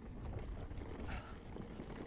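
Mountain bike riding over a dry trail: a steady tyre rumble with irregular knocks and rattles from the bike, and a short higher scrape about a second in.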